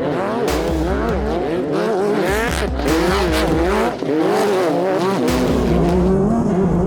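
Class 10 off-road race car's engine running hard, its pitch rising and falling repeatedly as the driver works the throttle.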